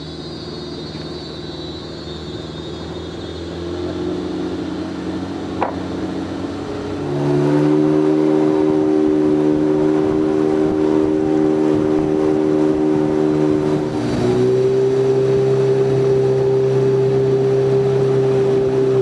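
Outboard motor of a river longboat running under way, a steady engine hum. About seven seconds in it grows louder as the throttle opens, and its note shifts again about three quarters of the way through.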